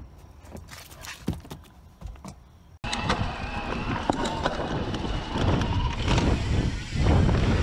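A few faint clicks and knocks, then a sudden switch about three seconds in to a Santa Cruz Heckler electric mountain bike riding fast down a dirt singletrack: tyre noise on the dirt and constant clattering and rattling from the bike, with wind on the microphone.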